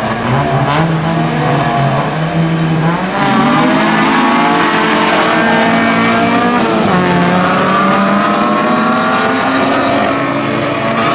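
A pack of rallycross cars' engines revving together at the start, then accelerating away as one. The sound gets louder about three seconds in, and the engine pitches climb and drop back with gear changes as the cars pass close and head for the first corner.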